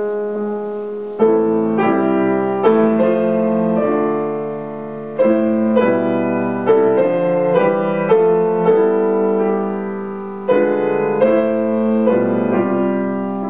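Grand piano played solo: a slow run of chords, each struck and left to ring and fade before the next. A chord from before is still dying away until the first new one comes in about a second in.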